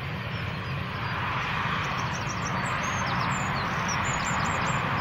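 Twin turbofan engines of a KLM Embraer E-jet at taxi power, a steady jet hiss and rumble that grows slightly louder a second or two in. Birds chirp in short high notes over it.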